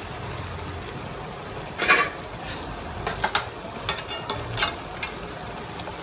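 Chicken stew sizzling steadily in a metal kadhai on a medium flame, with a few sharp clinks of utensils against the pan about two seconds in and again several times between three and five seconds in.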